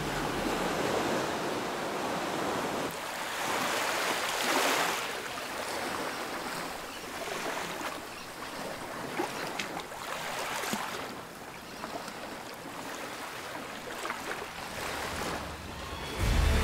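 Sea surf washing in, a rushing noise that swells and fades every few seconds.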